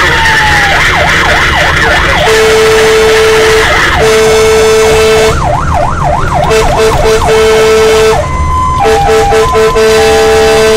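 Fire engine siren: a falling wail, then a fast rising-and-falling warble twice, with long steady two-note horn blasts in between. Near the end come several short, chopped horn toots.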